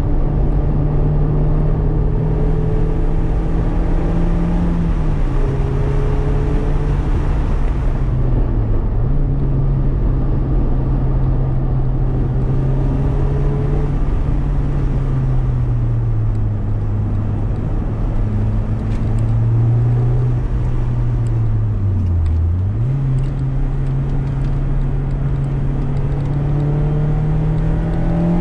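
Mazda MX-5 RF's four-cylinder engine through a Cobalt aftermarket exhaust, driven under load with road noise. Its note holds steady for long stretches, drops in pitch a few times, dips briefly about three-quarters through and climbs again near the end.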